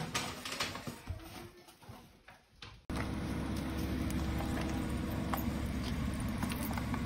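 A mixed-breed dog's claws clicking and pattering on a wooden floor as it walks. About three seconds in, this gives way to a steady low rumble with a few small clicks.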